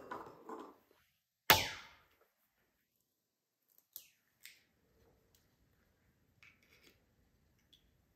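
An egg rapped once, sharply, on the rim of a glass bowl about a second and a half in, with a brief ring after it. A few seconds later come a couple of faint clicks of eggshell as the halves are pulled apart over the bowl.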